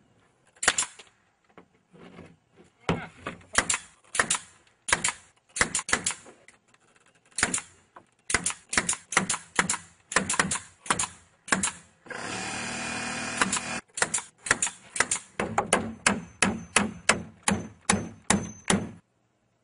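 Hammer blows driving nails into the wooden slats of a chicken coop, dozens of sharp strikes coming in runs, faster toward the end at about two a second. About twelve seconds in, a power drill runs for a second and a half.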